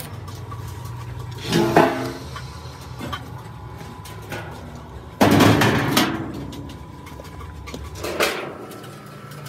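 A steady low hum with two sudden noises over it, a shorter one about one and a half seconds in and a louder clattering bang about five seconds in. The hum cuts off near the end.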